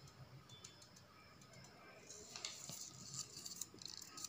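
Faint rustling and crinkling of a folded paper instruction leaflet being handled and unfolded, with small ticks, picking up about two seconds in.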